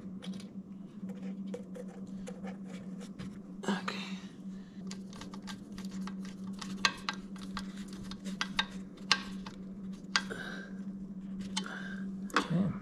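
Irregular small clicks and taps of hand tools and small metal parts as a temperature sensor and its wire terminal are fitted under a motorcycle radiator, over a steady low hum.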